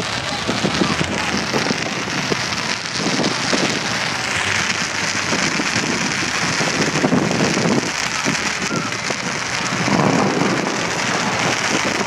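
Dense, continuous crackling of fireworks, a loud unbroken patter of small pops.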